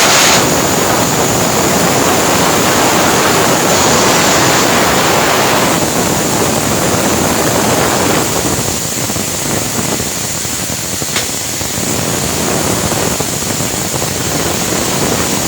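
Arc welding: the electrode arc crackling and sizzling steadily, with a thin high whine running under it. It eases off for a few seconds past the middle, then picks up again.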